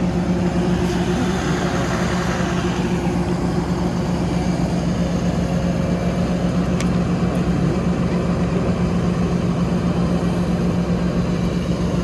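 Fire truck's diesel engine idling, a steady loud hum with a constant low tone.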